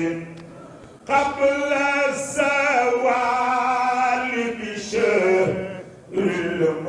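A man chanting a devotional song into a microphone, in long drawn-out phrases with wavering held notes. There are brief breaks between phrases about a second in and again near the end.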